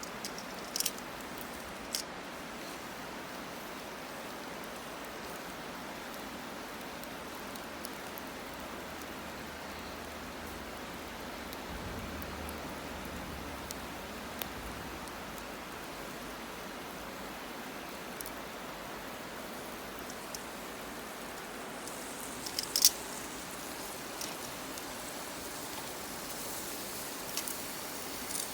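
Wood fire burning: a steady hiss with scattered sharp pops and crackles, and a cluster of louder pops about 23 seconds in.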